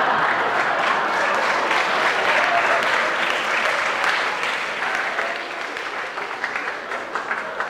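Theatre audience applauding, starting strong and slowly dying away toward the end.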